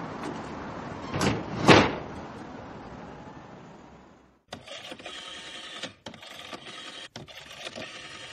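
A door pulled shut with two sharp knocks about half a second apart, over a steady hiss that fades away. About four seconds in a different mechanical sound starts, a choppy whirring and clicking that breaks off twice.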